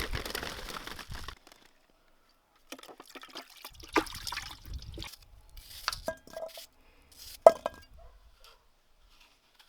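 Water running or pouring for about a second, then, after a short pause, kitchen handling noise with a few sharp clinks; two of them ring briefly like glass or metal.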